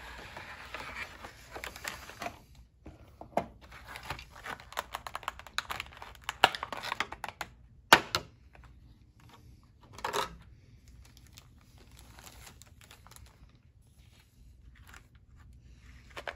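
Plastic packaging crinkling and crackling as a model train car is unpacked: a plastic tray slid out of its cardboard box, then a clear plastic bag worked off the car. A single sharp click about eight seconds in, a short rustle near ten seconds, then mostly quiet handling.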